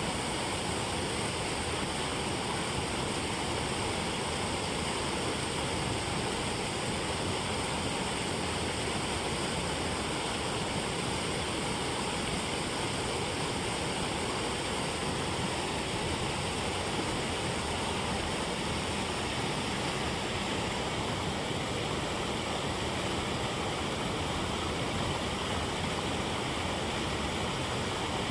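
Water spilling over a low weir and churning in white-water below it: a steady, unbroken rush.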